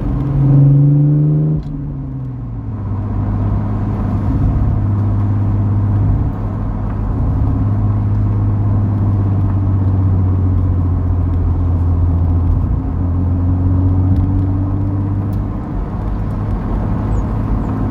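Car engine heard from inside the cabin while driving: it revs up for about a second and a half, drops off suddenly, then runs steadily at a low, even pitch, rising slightly a little after halfway.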